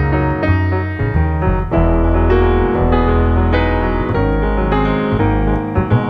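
Jazz piano and double bass duo playing: piano chords and melody over sustained low bass notes.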